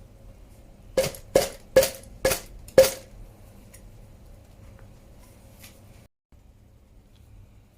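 Five quick, sharp metal-on-metal knocks about half a second apart, each leaving a short ring.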